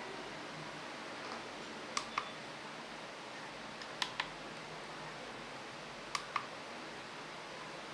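Push-buttons on a TC55V CNC controller's keypad being pressed: three double clicks, press and release, about two seconds apart, over a steady faint hiss.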